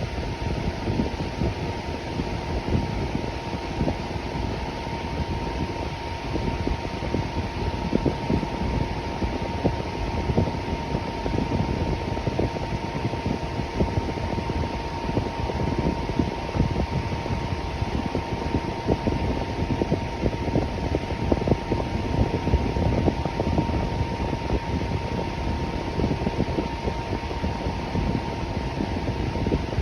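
Electric fan running steadily: an even rush of moving air, strongest in the low end, with a thin constant hum just under 1 kHz.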